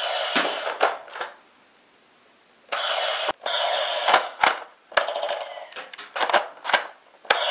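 Hasbro G.I. Joe Night Raven toy jet's battery-powered sound effects playing in several loud, tinny electronic bursts with short gaps. Sharp clicks come in between as its missiles are fired.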